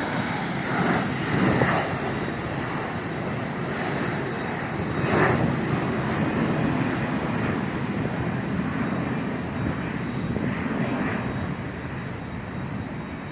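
Jet airliner engines heard as a steady rushing noise that swells gently and eases a little near the end.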